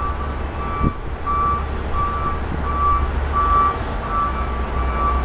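A vehicle's reversing alarm beeping regularly at one steady pitch, about one and a half beeps a second, over a low steady rumble.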